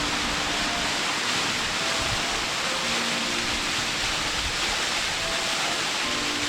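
Waterfall pouring steadily into its plunge pool: an even, unbroken rush of falling water.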